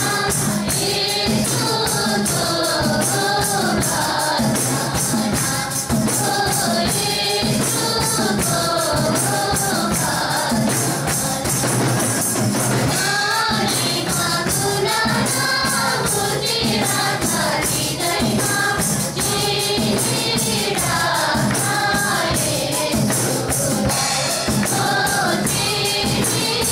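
A group of women singing a Nepali hymn together into microphones, backed by a steady rhythmic percussion beat.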